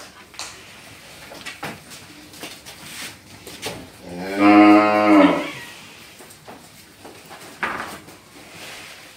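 A cow lowing: one long moo about four seconds in, lasting over a second, its pitch rising a little and then falling away. A few faint knocks and rattles can be heard around it.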